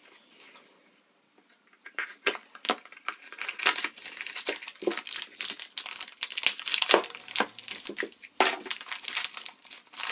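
Clear plastic bag crinkling and rustling as it is slit with a knife and pulled open by hand, starting about two seconds in and going on irregularly with many sharp crackles.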